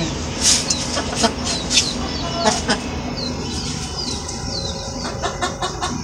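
Chickens clucking, with a string of short, high calls that fall in pitch, and a quicker run of short calls near the end.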